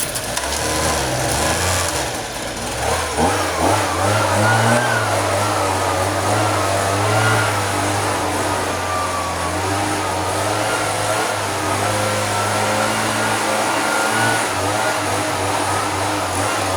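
Leaf blower running hard: its motor note and a whine that wavers up and down over the rush of air. It comes up to full speed within the first few seconds, then runs steadily.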